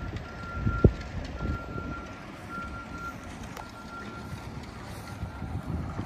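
A vehicle's backup alarm beeping steadily, one even tone about once a second, over low wind rumble. A single thump just under a second in.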